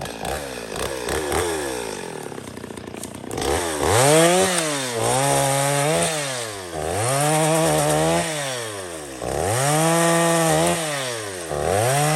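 Stihl 021 two-stroke chainsaw cutting firewood, running well. For the first three seconds or so it runs unevenly at low speed. Then it is revved up about four times, the pitch rising, holding steady through each cut, then falling back.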